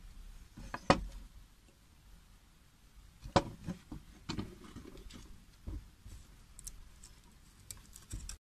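Handling noise: a few sharp clicks and knocks, the loudest about a second in and about three and a half seconds in, with faint rustling between, as the phone moves over and touches the wooden target board.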